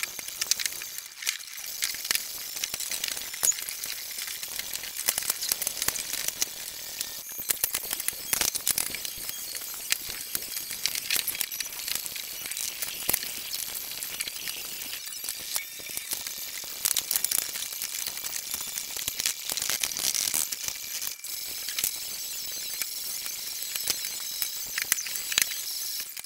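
Fast-forwarded sound of plywood sheets being carried and laid on a wooden floor: a dense, high-pitched run of clicks and clatter over a hiss.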